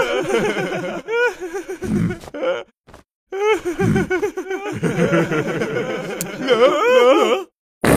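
Cartoon characters laughing heartily, several voices together, in two stretches split by a brief silence about three seconds in.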